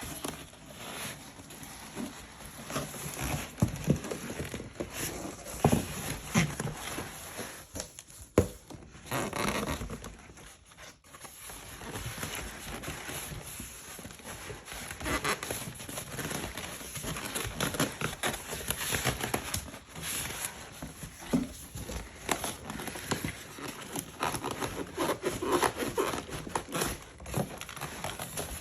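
A box and its packing material being handled and unpacked: irregular crinkling, rustling and knocks.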